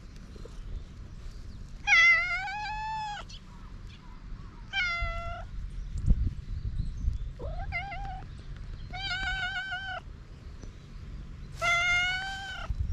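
A hungry stray domestic cat meowing five times, each call rising and then holding, the first and last about a second long and the first the loudest. A brief dull thump comes about midway.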